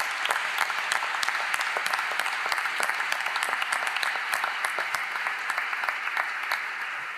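Audience applauding: many people clapping steadily, thinning a little near the end.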